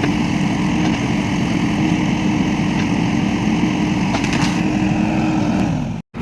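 Earthmoving machine's engine running steadily at a constant pitch, with a few faint clicks about four and a half seconds in. The sound cuts off suddenly just before the end.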